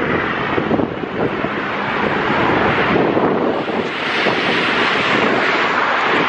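Highway traffic rushing past close by, with wind buffeting the microphone; a vehicle passes close about four seconds in, swelling the rush.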